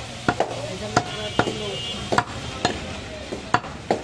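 A butcher's cleaver chopping through goat meat and bone onto a wooden log chopping block: about eight sharp chops, unevenly spaced.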